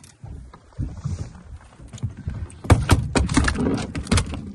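A freshly landed red snapper flopping on a fiberglass boat deck. A quick run of knocks and slaps starts a little under three seconds in and lasts about a second and a half.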